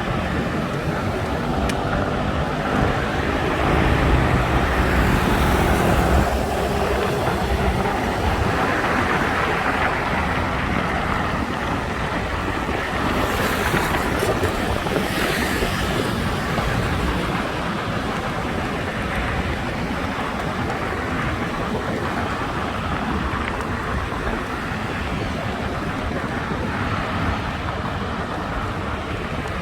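Road traffic on a busy city road: passing cars and other engines, louder over the first six seconds as a heavier engine drones past, with wind rumbling on the microphone.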